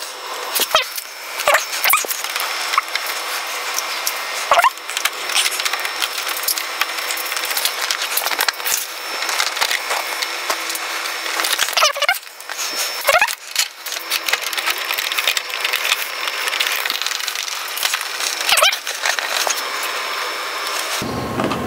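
Hands and tools working a plastic windscreen onto its metal mounting bracket: a steady clatter of small knocks, scrapes and rustles, with a few sharper knocks along the way.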